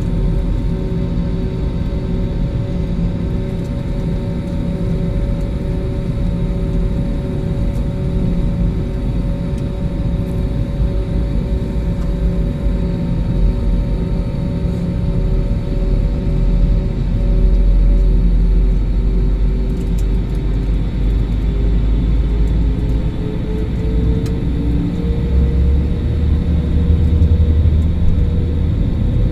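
Jet airliner engines heard from inside the cabin: a steady rumble with a whine that starts rising in pitch about two-thirds of the way in, and the deep rumble getting louder near the end as the engines spool up for takeoff.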